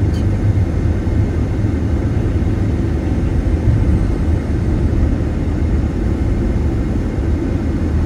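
Steady low rumble of tyre and engine noise inside a moving vehicle's cabin while driving.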